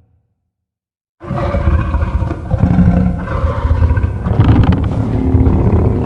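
Godzilla's roar sound effect from the Monsterverse films: one long, loud roar that starts suddenly about a second in.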